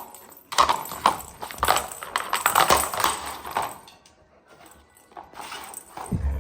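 A dog pawing at a plastic cat toy: rapid clattering and clicking of the toy and its ball. There is a long spell from about half a second in, then a shorter one near the end.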